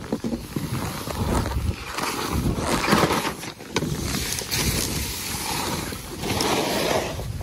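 Skis sliding and scraping over packed snow, with wind rushing across the microphone, rising and falling in loudness.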